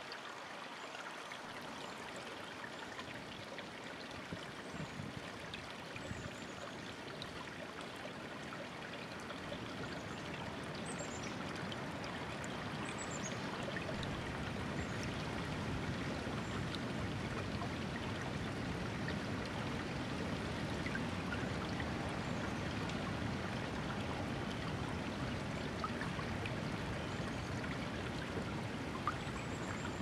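Shallow rocky stream babbling and trickling over stones, a steady rush that grows louder and deeper about halfway through. A bird gives a few faint, high, falling chirps now and then.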